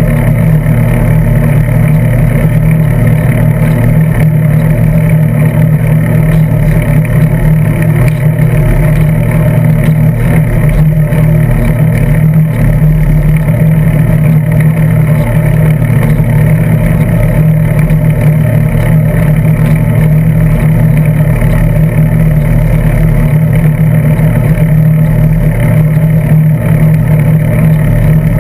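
Steady, loud low rumble of a bicycle riding along asphalt, tyre and road vibration and wind picked up by a GoPro Hero 2 clamped to the bike's seatpost.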